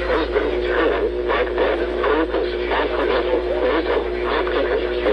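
Weather radio broadcast playing through a receiver's small speaker, muffled and cut off in the treble, over a steady low hum.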